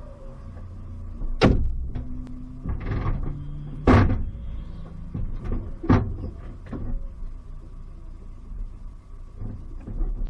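Sharp knocks and clicks of handling inside the open cockpit of a stationary Opel Speedster, over a low steady rumble. There are three loud knocks about two seconds apart, with smaller clicks between them.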